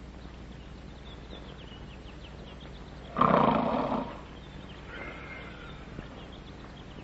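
A loud snore about three seconds in, lasting under a second, followed by a faint breath out.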